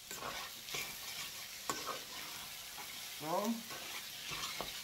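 Fried rice with pineapple sizzling in a stainless steel frying pan while a spatula stirs it, with irregular sharp scrapes and knocks of the spatula against the pan.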